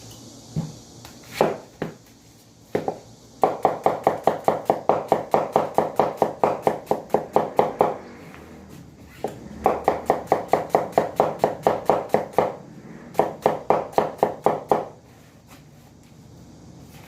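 Quick, even chopping knocks at about five a second, in three runs of a few seconds each, after a few single knocks.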